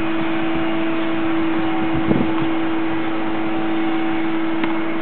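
A steady mechanical hum with a constant low tone, broken twice by sharp pops of a tennis ball struck with a racket: a louder one about two seconds in, a fainter one near the end.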